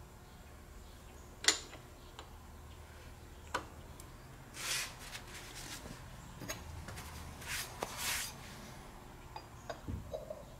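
Light metal clicks and knocks as a seal and a cast axle bearing hub are handled and set on the bed of an arbor press. The sharpest click comes about a second and a half in, with a few short scuffing sounds in between.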